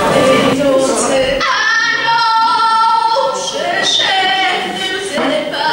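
A young female singer's voice through a hall PA. About a second and a half in, the accompaniment drops out and she holds one long note unaccompanied, followed by shorter vocal phrases.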